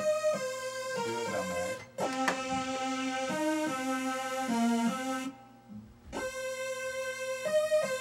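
Electric keyboard playing sustained notes, a steady upper note held over a changing lower line. The music breaks off briefly about two seconds in and again for most of a second past the middle.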